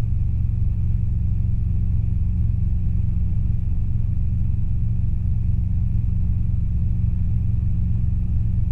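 Robinson R22 helicopter in a climbing turn: a steady, loud, low drone of engine and rotors.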